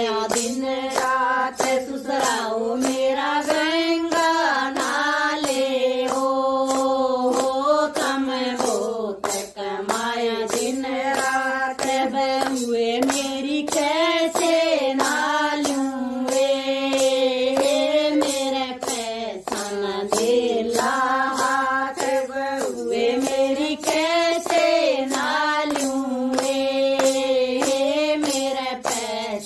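Group of women singing a devotional bhajan, with long held notes, while steady hand claps keep the beat.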